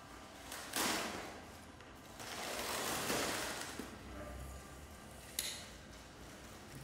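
Packing material being handled: rustling and tearing of padded wrapping and tape being pulled off a frame's corner protector, in noisy swells. There is one sharp click about five and a half seconds in.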